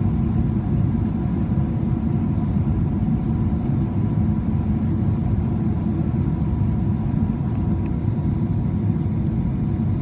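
Steady cabin roar heard from a window seat of a Boeing 777-300ER in flight: airflow over the fuselage and the hum of its GE90-115B engines, with a faint steady whine above it.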